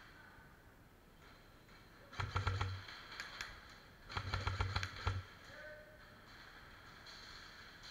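Airsoft electric rifle (AEG) firing two short automatic bursts about a second and a half apart: a rapid string of clicks over the hum of the gearbox motor. The second burst is longer, about a second.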